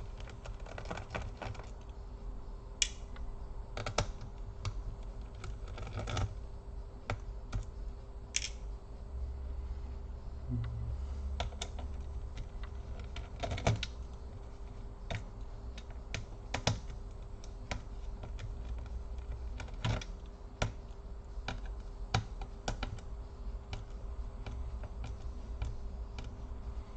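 Irregular light clicks and taps of a precision screwdriver working small screws out of an HP EliteBook Folio 9480m laptop's chassis, with the small screws and plastic parts being handled.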